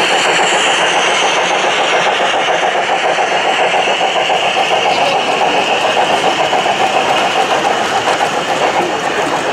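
1:32-scale model freight train rolling past on the track: tank wagons and open wagons running by in a steady rumble, which takes on a quick pulsing rhythm in the second half.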